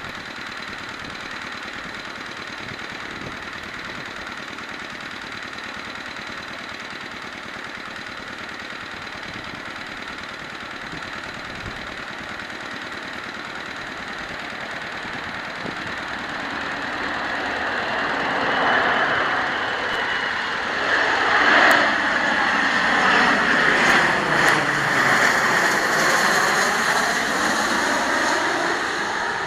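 Dassault Falcon 8X business jet's three turbofan engines. A steady whine over a rushing noise grows louder over the second half, and the pitch sweeps as the jet passes close by.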